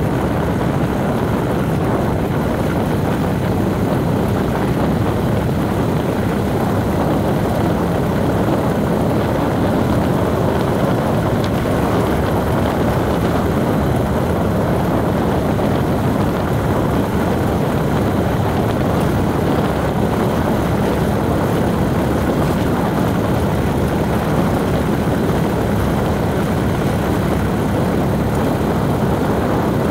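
Steady road and engine noise of a moving vehicle driving at an even speed, with no changes.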